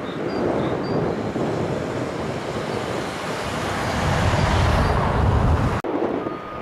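Class 60 diesel locomotive's Mirrlees eight-cylinder engine working as it hauls a loaded stone train, with wind buffeting the microphone. The low rumble grows louder about four seconds in and breaks off suddenly near the end.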